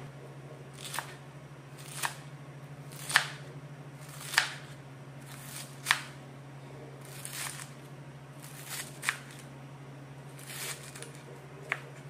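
Large kitchen knife slicing through a head of cabbage: a short crunch with each cut, ending in a sharp knock of the blade on the work surface, about once a second. A steady low hum runs underneath.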